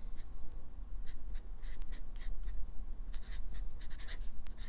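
Marker pen writing a short label by hand: a quick run of short, separate strokes.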